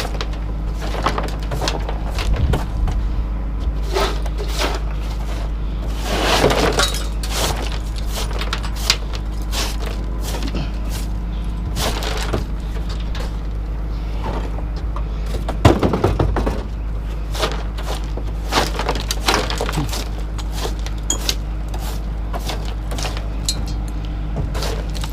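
Scrap metal clinking and clattering as loose pieces are cleared off a truck bed, with a steady low hum underneath. There are scattered sharp knocks, and two longer rattling clatters: one about six seconds in and a louder one about sixteen seconds in.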